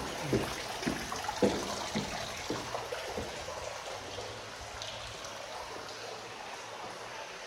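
Footsteps on a hard floor, about two a second, dying away after about three seconds, under a steady rushing hiss that carries on to the end.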